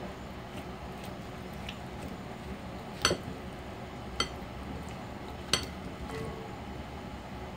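Salad utensils clinking against a glass mixing bowl as cucumber salad is tossed: three sharp clinks, about three, four and five and a half seconds in.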